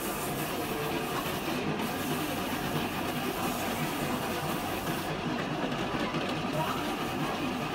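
Motor-driven spindle polishing machine with sanding discs running steadily while a lacquered piece is wet-sanded against the spinning disc, water spattering off the wheel.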